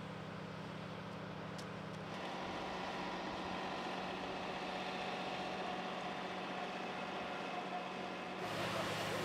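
A vehicle engine running steadily. The sound changes abruptly about two seconds in and again near the end.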